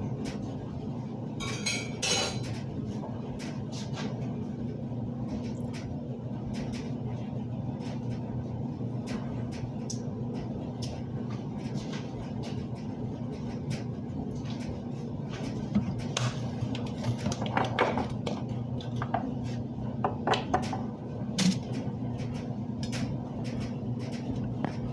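Dishes and cutlery clinking now and then over a steady low hum, with a quick run of clinks about two seconds in and more scattered clinks later on.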